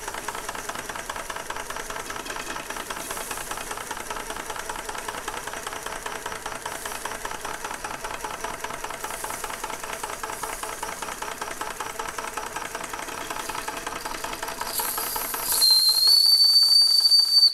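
Bing toy live-steam engine running, with a rapid, even mechanical clatter that the owner puts down to the noisy drive on its governor. Near the end the boiler's steam whistle is opened: a hiss of steam, then a loud, steady, high-pitched whistle that rises slightly at first.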